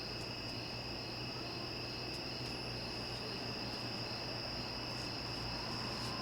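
Chorus of crickets singing steadily, a continuous high pulsing trill, with a low steady hum underneath.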